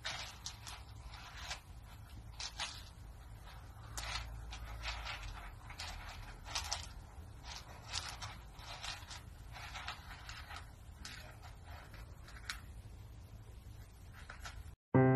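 A kitten digging in a litter box of pellet litter: irregular short scratching and rustling scrapes as the pellets are pawed and shifted, over a low steady rumble.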